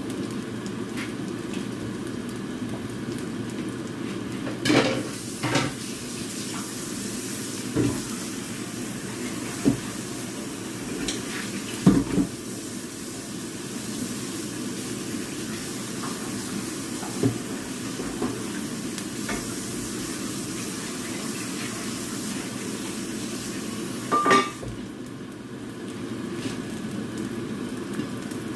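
Korean pancake with squid steadily sizzling as it fries in a nonstick pan. Now and then a utensil knocks or clinks against the pan, the loudest one near the end with a brief ring.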